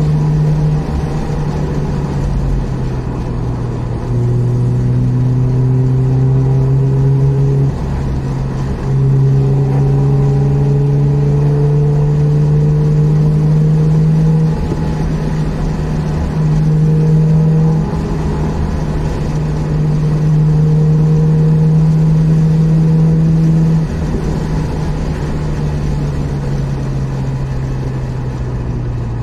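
Mazda RX-8's twin-rotor Wankel rotary engine heard from inside the cabin, pulling hard in several bursts of throttle whose pitch climbs slowly, each cut off by a sudden lift. For the last several seconds it eases off and the pitch falls.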